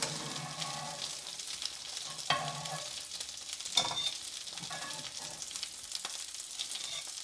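Breaded chicken goujons sizzling steadily in olive oil in a frying pan. A few sharp metal clicks come from tongs lifting pieces out onto a plate.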